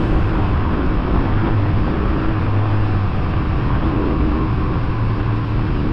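Small single-cylinder four-stroke dirt bike engine running steadily under way, with a steady low hum and a rush of noise.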